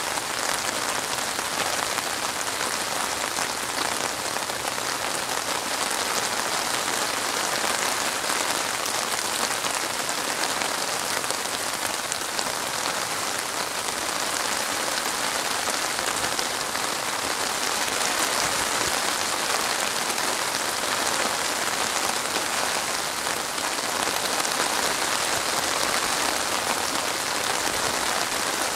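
Steady rain falling on a flat stretch of open water: a dense, even hiss of countless drops striking the surface, with no change or single loud event.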